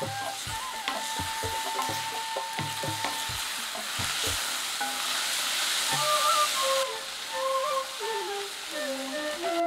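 Sliced onions, garlic and curry leaves sizzling as they fry in oil in a metal pan, stirred and tossed with a wooden spatula, with soft flute music in the background.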